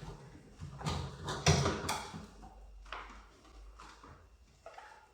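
Sharp knocks and clicks of hard parts being handled, with several in quick succession in the first two seconds and one more about three seconds in.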